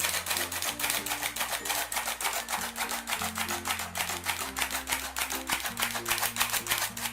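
Flour sifter clicking rapidly and evenly, about six or seven times a second, as flour is sifted into a bowl; the clicking stops abruptly at the end.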